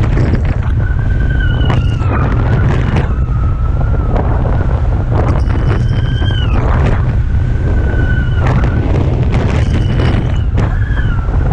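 Strong wind buffeting the microphone with a heavy rumble while riding a kitefoil in strong wind. A high, thin whistle comes and goes about five times, each lasting a second or two and bending up and down in pitch, with short splashes of water here and there.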